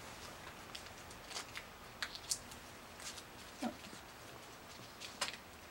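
Faint, scattered small clicks and taps from hands handling a plastic horse leg on a wooden fixture, about five over a few seconds.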